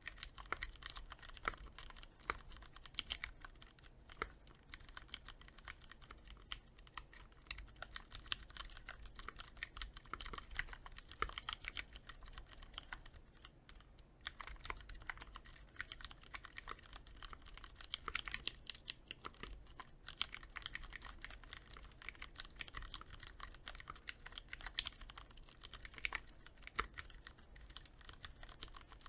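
Typing on a Cherry MX Board 3.0S mechanical keyboard with Cherry MX Red linear switches, quick-lubed with Krytox 105: a fast, continuous patter of keystrokes with a brief pause about halfway through.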